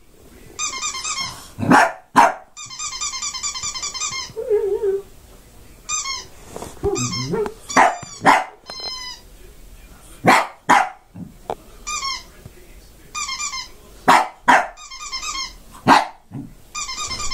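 Shih tzu barking in sharp single and double barks, with a short low growl between them. The barks answer a fast, evenly repeating electronic chirping that starts and stops in bursts, coming from a mobile phone lying on the floor in front of the dog.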